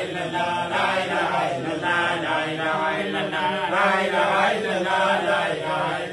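A group of men chanting Islamic dhikr together, repeating a short phrase over and over in a steady rhythm.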